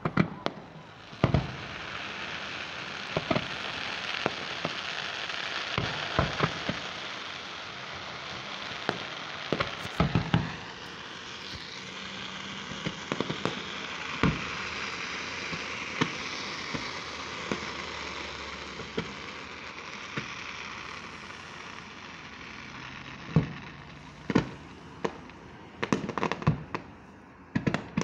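Fireworks display: a string of sharp bangs from bursting shells over a steady hiss, with the bangs coming quicker in the last few seconds.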